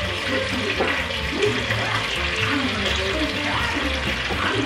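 Hot cooking oil sizzling steadily in a frying pan as browned chicken drumsticks are lifted out with tongs. Background music with a steady beat plays underneath.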